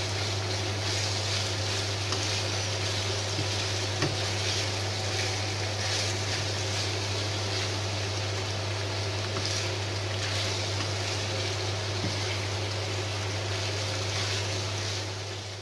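Minced pork and beef frying in a non-stick pan: a steady sizzle, with a wooden spoon scraping and tapping the pan a few times as it is stirred, over a steady low hum.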